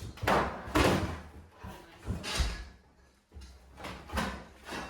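Knocks and scraping of nailed wooden boards being pried and pulled loose during demolition, in about four separate bangs with a short lull between them.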